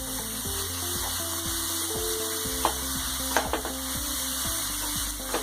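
Grated beetroot and cauliflower with spices sizzling in oil in a hot pan while being stirred, with a few sharp knocks near the middle and end.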